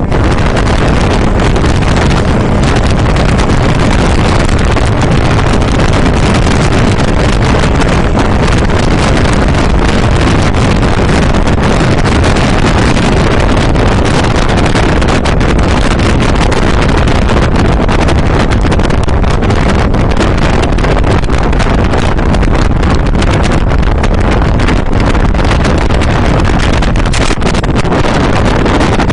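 Loud, steady wind noise on the microphone on the deck of a ship under way, with the vessel's engine and water rush underneath.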